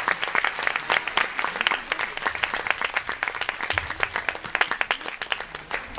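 Audience applauding: many hands clapping densely, thinning a little near the end.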